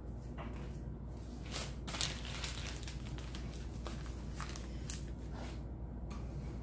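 Faint rustling and a few light taps from hands handling things at the work table, over a steady low hum.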